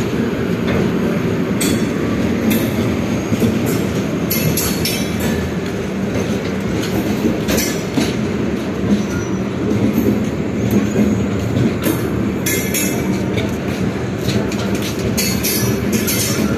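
LHB passenger coaches of an express train rolling past as it pulls out of the station: a loud, steady rumble of steel wheels on rail, with brief sharp high-pitched sounds every second or two.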